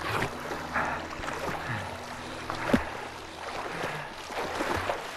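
A person swimming hard through choppy water, making a run of irregular splashes as the arms break the surface, with one louder splash about halfway through.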